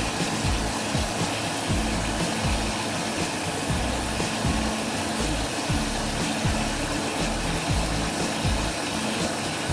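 Background music with a stepping bass line, over a steady rushing noise.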